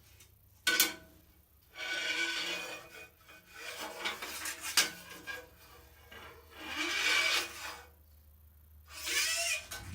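A sharp knock, then several second-long spells of scraping and rubbing as bandsaw table-extension parts are slid and worked against each other while being fitted.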